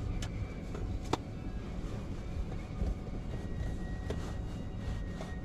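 A car's engine idling, heard from inside the cabin: a low steady rumble with a couple of faint clicks.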